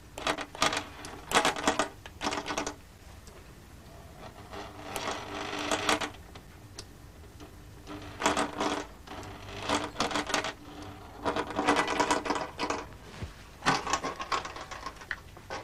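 Small stepper motors being pulsed, stepping in short rapid bursts of clicks that turn cam discs and rock two levers. The bursts come in irregular groups with brief pauses between them, over a faint steady hum.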